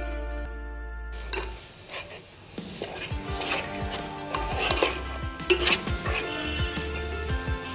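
Guitar background music ends about a second in; then a steel ladle stirs and scrapes through thick curry masala in an aluminium pot, with repeated clinks and scrapes of the ladle against the pot.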